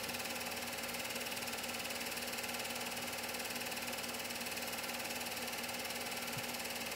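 Film projector running: a steady mechanical whir of its motor and film transport, with a constant low hum underneath.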